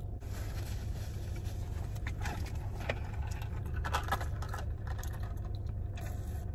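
A person chewing food, with scattered small crunches and clicks, over a steady low hum.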